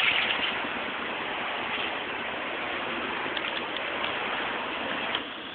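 Steady rushing street-traffic noise, the hiss of tyres on the road, as a trolley bus and cars drive along; it drops off noticeably about five seconds in.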